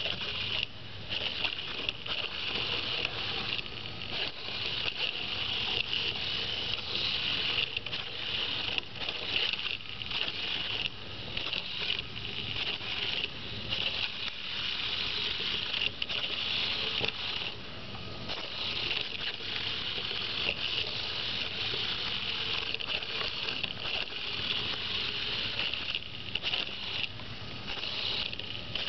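Pololu 3pi robot's two small gearmotors whining as it drives and steers along a line, with short gaps where the motors briefly stop and start again.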